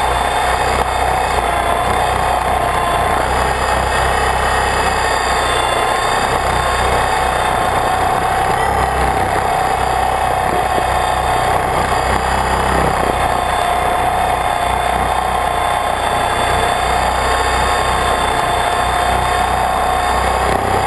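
Radio-controlled helicopter's motor and rotor running in flight, heard from a camera mounted on the helicopter: a steady high whine that wavers slightly in pitch.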